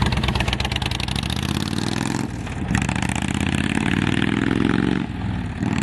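Honda VTX 1300's V-twin engine being revved through its exhaust: the note climbs steadily for a couple of seconds, then drops back about five seconds in.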